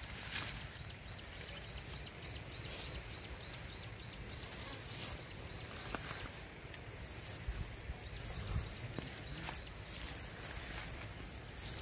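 Grass and brush rustling and crackling as someone pushes through tall vegetation, with birds calling: a short chirp repeated about three times a second for the first few seconds, then a quick run of high falling notes about seven seconds in.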